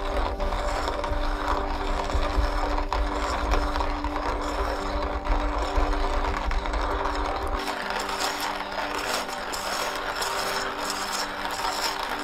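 Kalita Ceramic Slim hand coffee mill being cranked steadily, its ceramic burrs grinding roasted coffee beans with a continuous gritty, ratcheting grind.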